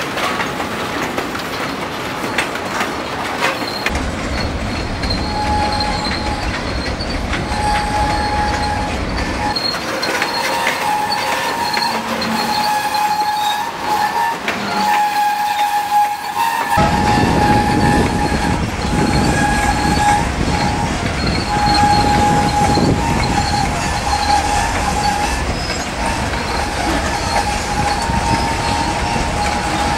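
A freight train of boxcars and covered hoppers rolls past close by, its steel wheels rumbling and clacking over the rail joints. A thin, high steady squeal from wheels against the rail comes and goes over the rumble.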